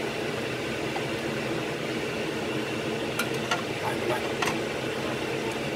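A steady mechanical hum runs underneath. A little past the middle come a few light clicks of chopsticks against the dish.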